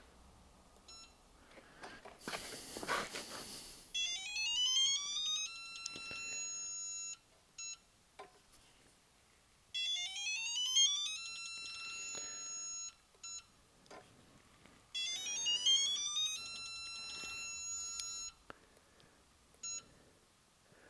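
Electronic torque tester giving its tone three times as a beam torque wrench is pulled against it: each time a rising tone with climbing chirps, then several steady high beeps held for about two seconds before cutting off. A brief rustle of movement comes before the first.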